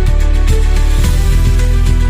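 Background music with a steady beat: a deep held bass under evenly spaced drum hits.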